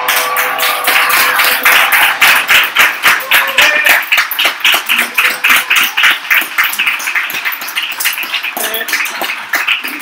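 A small group clapping, quick and fairly even, several claps a second. The clapping is strongest in the first half and thins out towards the end.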